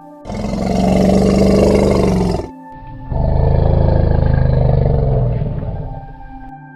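Tiger roaring twice: two long, deep, rumbling roars with a short pause between them, the second one longer. Faint ambient music runs underneath.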